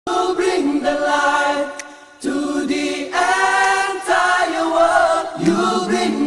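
A cappella vocal group singing in harmony, a song in sung phrases with short breaths between them, starting suddenly out of silence.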